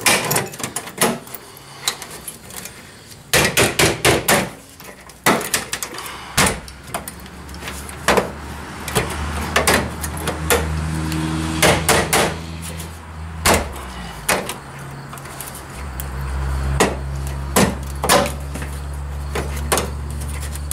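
Sheet-metal repair strip being knocked and pushed into place under a car's rocker panel: irregular sharp knocks and taps, some in quick clusters. A steady low hum joins about a third of the way in and grows stronger later.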